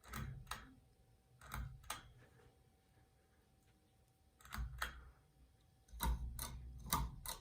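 Three-speed pull-chain switch of a ceiling fan clicking as the chain is pulled and let go, a series of sharp clicks mostly in pairs.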